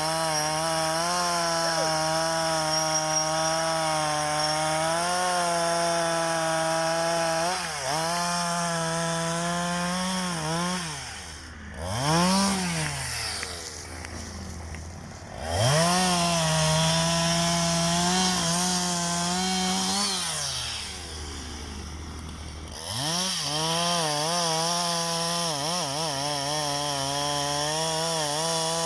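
An engine running at high, steady revs under varying load. It drops off and quickly revs back up twice, once about twelve seconds in and again about twenty-one seconds in.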